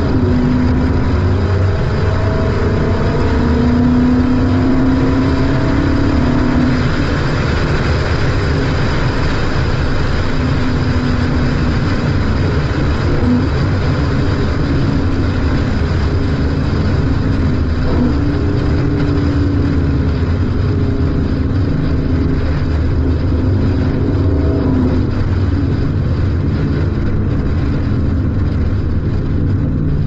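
Ford Mustang GT convertible's V8 engine and exhaust while driving, the engine note climbing and easing off with the throttle over steady road and wind noise.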